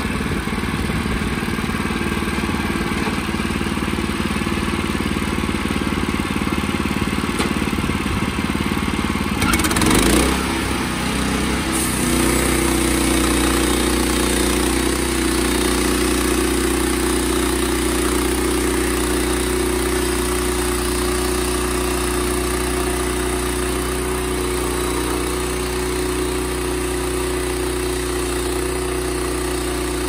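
Gasoline engine of a portable band sawmill running under load as the blade cuts a log into lumber. The sound is rough for the first ten seconds, surges briefly, then holds a steady pitch.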